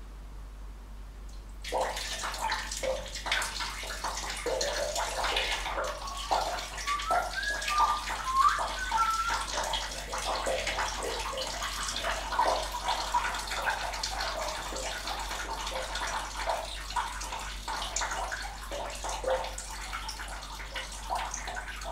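A man urinating into a toilet bowl, the stream splashing into the water. It starts about two seconds in and keeps going steadily, with a few brief shifting tones about halfway through.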